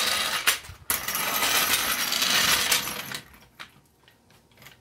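Steel floor jack being rolled across a concrete driveway by its handle: a loud metallic rattle from its wheels in two pushes, dying away about three seconds in, followed by a few faint clicks.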